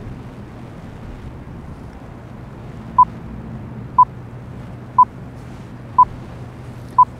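Countdown sound effect: five short electronic beeps, evenly one a second, starting about three seconds in, over a steady rush of wind on the microphone.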